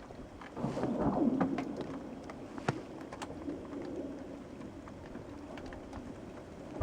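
A lake's thin new ice cracking as it freezes: a rolling burst of sound about half a second in that lasts about a second, then sharp cracks a little before and after three seconds in, with faint scattered ticks throughout.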